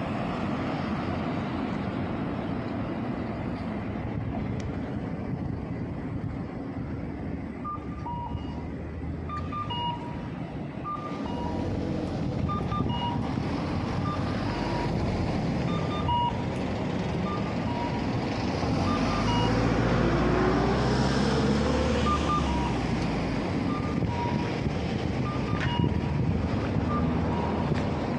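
Road traffic with cars passing. From about eight seconds in, a pedestrian crossing signal gives short electronic beeps, repeating at two alternating pitches. Around twenty seconds a vehicle pulls away, its engine note rising and the rumble growing louder.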